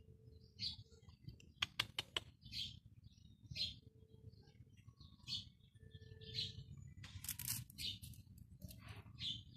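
A small bird chirping over and over, short high chirps about once a second. A quick run of four sharp clicks comes about two seconds in, and a scratchy rustle about seven seconds in.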